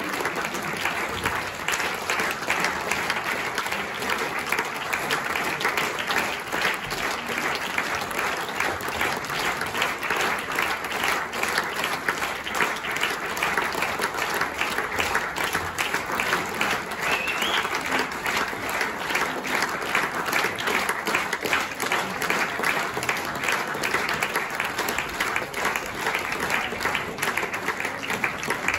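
Theatre audience applauding steadily, a dense and unbroken sound of many hands clapping.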